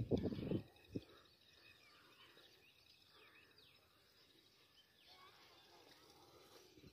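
Faint outdoor ambience with scattered small bird chirps, after a loud low rumble of wind or handling noise and a single knock in the first second.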